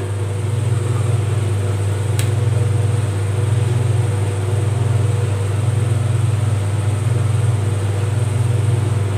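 Steady low mechanical hum, with one faint click about two seconds in.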